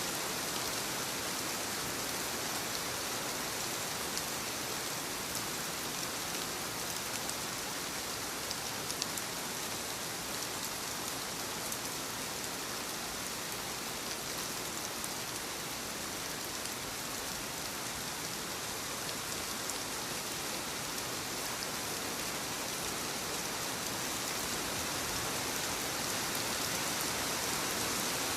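Steady rainfall with a dense patter of drops landing on surfaces.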